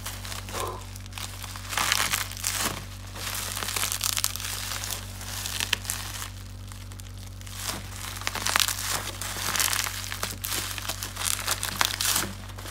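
Bubble wrap and brown plastic packing tape being pulled and crumpled by hand, in irregular crinkling rushes with sharp crackles.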